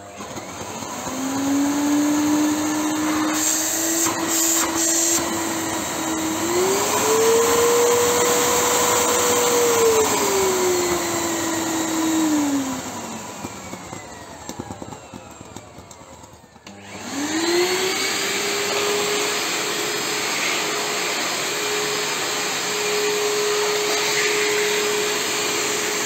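Haeger Aquafilter Pro 1400 W water-filter canister vacuum cleaner running: the motor whine starts at once, climbs in pitch, then falls and fades away about 11 to 14 seconds in. It starts again sharply about 17 seconds in and runs at a steady pitch.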